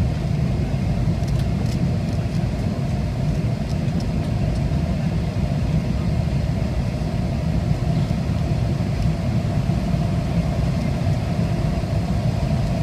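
Steady cabin noise inside a McDonnell Douglas MD-88 airliner on approach: a low rumble of airflow and its rear-mounted Pratt & Whitney JT8D turbofan engines, with a steady hum above it.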